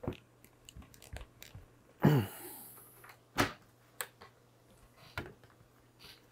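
Vinyl aquarium tubing being forced onto the plastic hose connectors of a canister filter: scattered light clicks and knocks of plastic and tubing being handled, with one louder, briefly falling-pitched burst about two seconds in.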